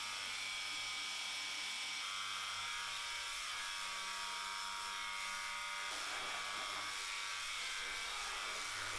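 Electric pressure washer running steadily: an even motor whine with many steady tones over the hiss of the spray.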